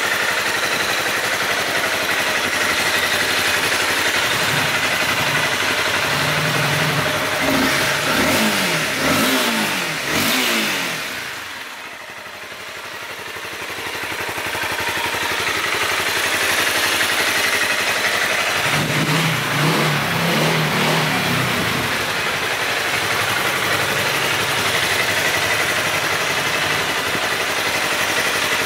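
Honda CBR250R's single-cylinder engine running, revved up and down twice, about eight seconds in and again about nineteen seconds in, with a short drop in level between the two.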